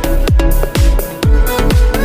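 Electronic dance music with a steady heavy beat about twice a second under held synth notes.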